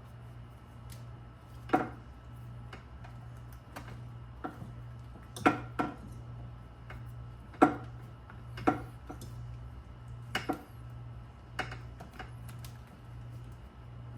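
Hand tools and small hard parts clicking and clinking during a wiring repair, about eight sharp knocks at uneven intervals, two of them in quick pairs, over a steady low hum.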